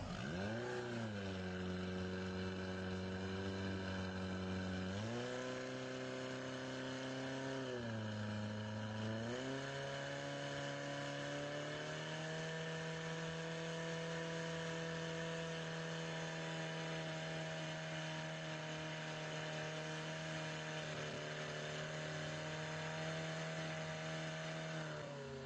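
Portable fire-pump engine running hard and pumping water out through the hoses to the spraying nozzles. Its pitch dips and jumps back up a few times in the first half, then holds steady at higher revs.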